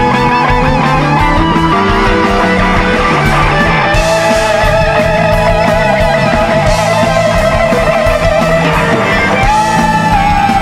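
Live jam-band rock played instrumentally: an electric guitar lead with long held, wavering notes over bass and steady drums. About a third of the way in the lead settles on one long sustained note, then steps up to a higher note near the end.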